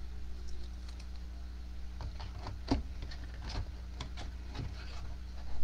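A run of irregular light clicks and taps, starting about two seconds in, over a steady low electrical hum.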